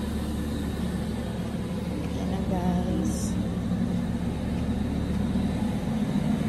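City bus engine idling with a steady low hum, with a short high hiss about three seconds in.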